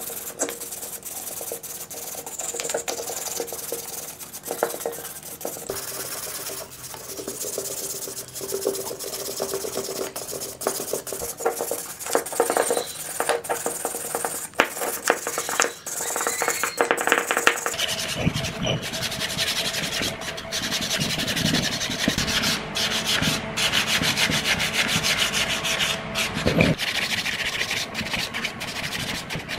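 Wire brush scrubbing the corroded, finned metal housing of a small motor by hand in quick back-and-forth strokes. About two-thirds of the way through, the scraping turns heavier and fuller.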